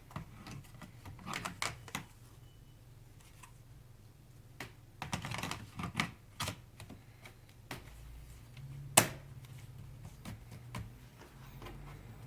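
Plastic clicks and handling noises of a battery pack being fitted into a Lenovo ThinkPad E550 laptop, with one sharp click, the loudest, about nine seconds in.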